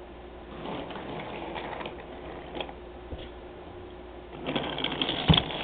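Toy train running along its track, the motor whirring and the wheels rattling, growing louder about four and a half seconds in with a dense clatter and one sharp knock near the end.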